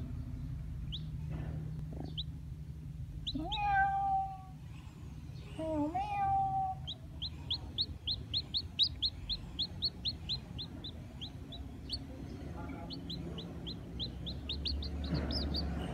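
A kitten meows twice a few seconds in, then a black chick peeps in a fast run of short high notes, about four a second, pausing briefly and starting again near the end. A steady low hum runs underneath.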